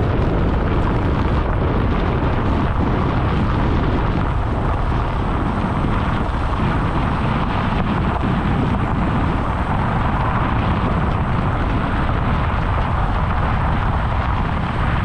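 Large diesel harvest machinery running steadily, a loud, even rumble.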